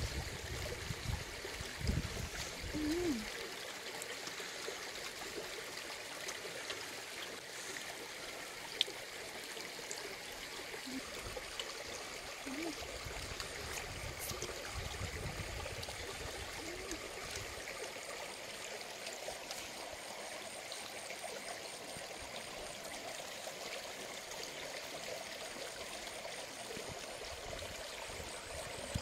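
Shallow stream flowing steadily, with a few soft low knocks and one sharp click about nine seconds in.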